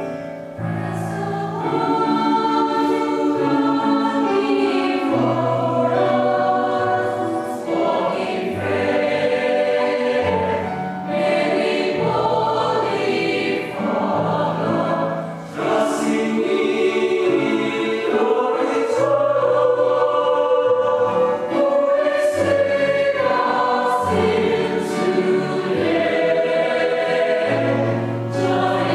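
Mixed choir of men's and women's voices singing a sacred piece in harmony, with held chords that change every second or two and a low bass line beneath.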